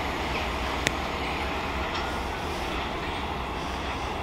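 Class 465 Networker electric multiple unit running away from the listener, a steady rumble, with one sharp click about a second in.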